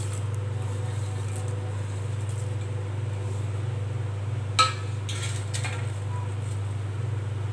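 A steady low hum, with a single short clink of steel kitchenware about four and a half seconds in and a few faint ticks just after it.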